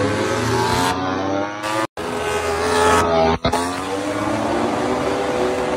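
MotoGP racing motorcycles' four-cylinder engines running at high revs as bikes ride past on the straight: the engine note rises during the first two seconds, then after a brief cut falls away as bikes pass, with a second short dropout soon after.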